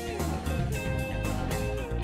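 Background music: guitar notes, some bent in pitch, over a steady drum beat.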